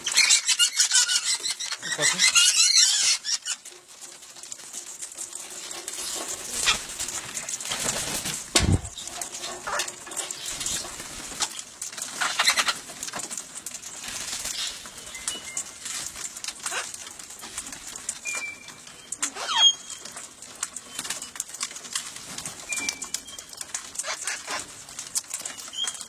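Wild parrots flapping their wings in a loud flurry for the first three seconds, then scattered short chirps and squawks. A dull thud comes about a third of the way in, and one call glides downward about three-quarters of the way through.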